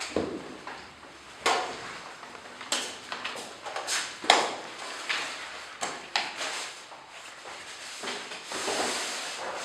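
Irregular knocks and clatter of hard objects being handled, about eight separate clunks with the loudest about four seconds in, and rustling near the end.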